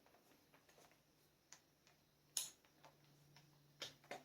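Near silence with a few faint, scattered clicks of hand tools on the engine, the clearest about two and a half seconds in.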